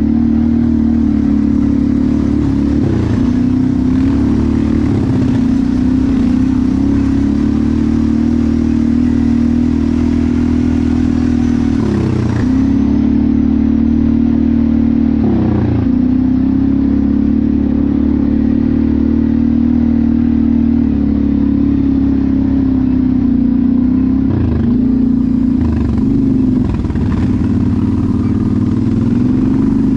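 ATV engine running hard at steady high revs, its pitch dipping briefly and picking back up four times.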